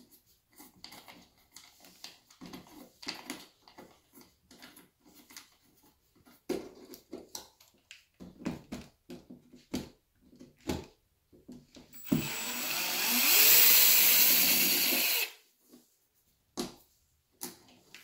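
Cordless drill running on a switch-box screw in one burst of about three seconds, its motor pitch rising, the loudest sound here. Before it, scattered light clicks and knocks of handling at the switch box.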